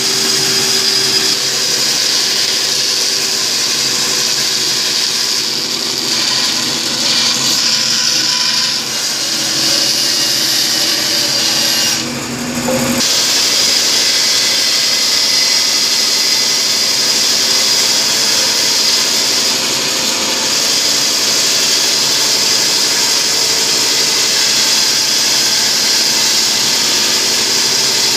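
Shop Fox W1729 bandsaw running and cutting through a yellow cedar plank to rough out a paddle blank: a steady motor hum with the blade's high hiss through the wood, dipping briefly a little after twelve seconds in.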